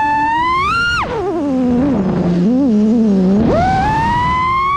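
6S FPV quadcopter's motors whining, the pitch following the throttle: a high whine climbs, drops sharply about a second in, wavers low for a couple of seconds, then rises sharply and climbs again before dropping at the end.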